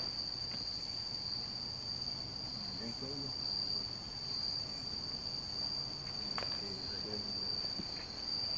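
Steady, high-pitched chorus of insects: one unbroken shrill trill.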